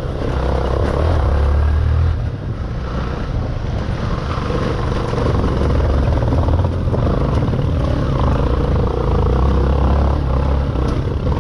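Motorcycle riding slowly along a rough, stony dirt trail: a steady low engine rumble, with a few faint knocks as the bike jolts over the stones.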